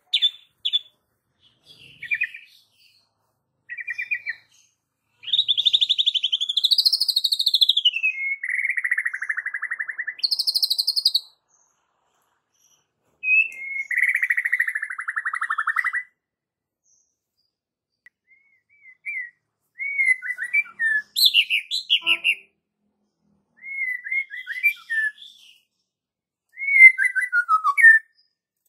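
White-rumped shama singing in varied phrases with pauses between them. It opens with short whistled notes, gives long buzzy trills that rise and then fall, and ends with quick runs of whistled notes, the loudest near the end.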